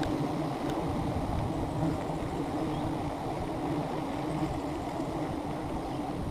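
A swarm of wild honeybees buzzing around their exposed comb as it is cut, a steady, dense drone with a wavering hum.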